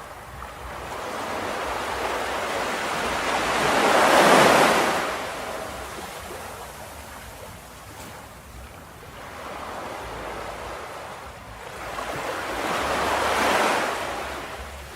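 Ocean waves breaking on a beach: two big surges, the first peaking about four seconds in and the second near the end, each washing up and then draining away.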